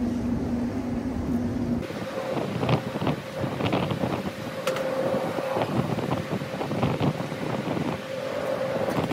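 Short hissing bursts from an aerosol can of Blaster PB penetrating oil sprayed onto a condenser fan motor shaft. Hand contact with the blade and hub adds light knocks, over a steady mechanical hum and wind on the microphone.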